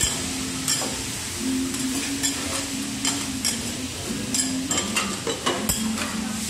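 Metal teppanyaki spatulas clacking and scraping on a hot steel griddle as the chef chops and scoops food, with the food sizzling steadily underneath. The strikes come irregularly, several to the second at times.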